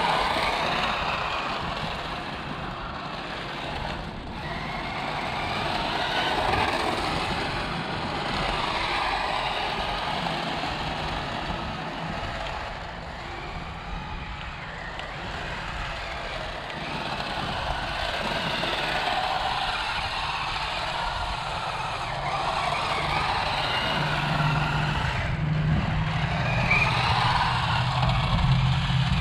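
Toy RC drift car driving, its small electric motor whirring and its tyres scrubbing and skidding, rising and falling as it speeds up and turns. A low steady hum joins near the end.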